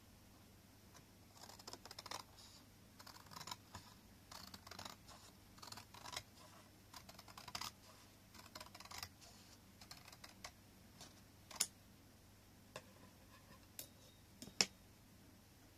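Watercolour paper being handled and slid over a picture frame's backing board: quiet scratchy rustling in short bursts for the first nine seconds or so, then a few sharp taps near the end.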